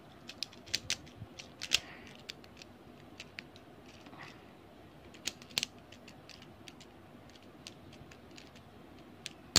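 Small sharp plastic clicks and ticks of Beyblade Burst top parts being fitted and twisted together, a quick cluster in the first two seconds and a few scattered clicks after.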